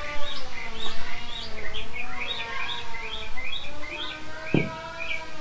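Small birds chirping in a quick, repeated run, about three or four short high chirps a second, with a single dull knock about four and a half seconds in.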